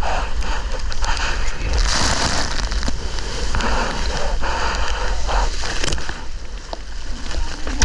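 Wind rumbling on an action camera's microphone, with water splashing and sloshing around it.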